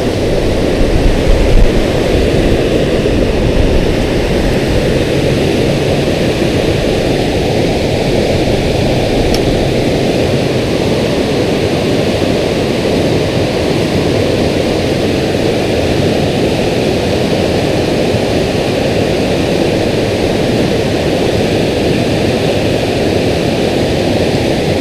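Water pouring over a low dam spillway: a steady rushing roar, with a few short louder bumps in the first two seconds.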